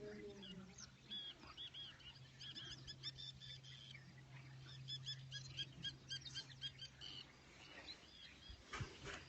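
Faint birdsong: many quick, repeated arched chirps, over a steady low hum, with a few clicks near the end.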